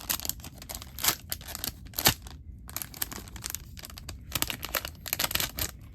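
Packaging being crinkled and torn open by hand: a dense run of sharp crackles, with two louder snaps about one and two seconds in.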